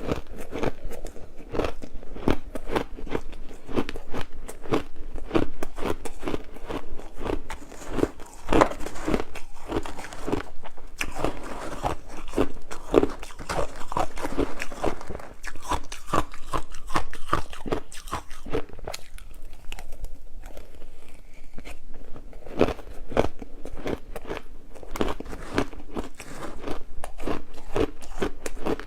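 Close-up crunching of matcha ice being bitten and chewed, a rapid, uneven string of sharp crunches.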